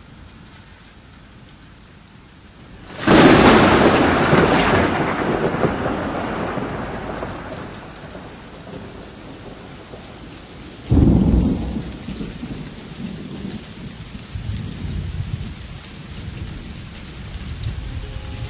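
Thunderstorm with steady rain. A sudden thunderclap about three seconds in rumbles away over several seconds, and a second, shorter clap comes a little past the middle.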